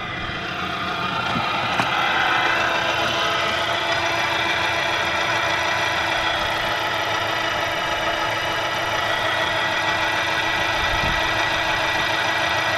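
Angle grinder's universal motor driving a homemade electric boat's propeller on 12 volts, switched to forward: it spins up over the first couple of seconds, then runs steadily with a whine.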